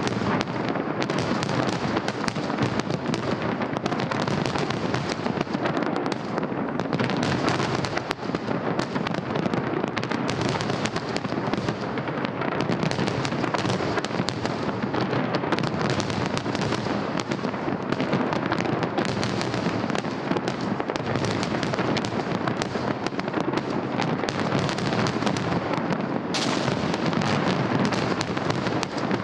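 Festive fireworks display, with many shells bursting and crackling in rapid, unbroken succession.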